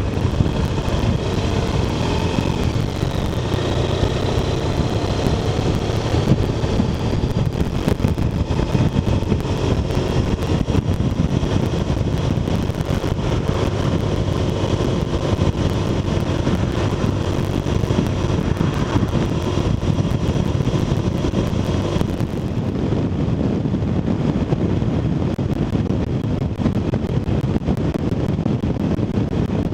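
BMW R1200RT flat-twin motorcycle engine running under way, heard from a camera mounted on the bike, as the bike gathers speed. About two-thirds of the way in the sound turns suddenly duller.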